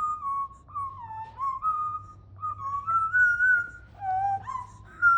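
Whistling: a melody of about ten clear, held notes with small slides between them, moving up and down.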